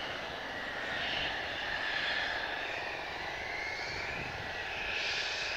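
Mitsubishi F-2 fighter's single F110 turbofan running at taxi power: a steady high whine that wavers slightly in pitch over a rushing hiss.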